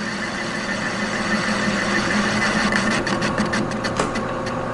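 Metal lathe running steadily while a brazed carbide tool takes a cleanup cut on a spray-welded shaft journal. From about three seconds in there is a rapid run of sharp ticks.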